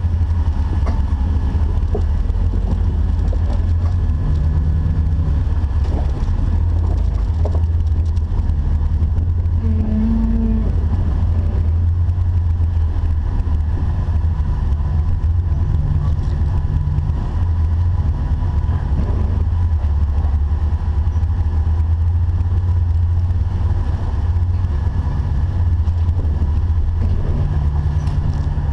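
A Jeep's engine running, a steady low rumble with small shifts in pitch.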